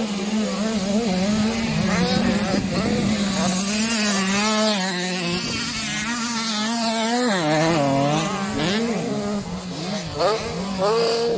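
85 cc motocross bikes racing, their engines revving up and down with the throttle, several engine notes overlapping. A steadier low engine note holds underneath, dips in pitch about seven seconds in, then climbs back.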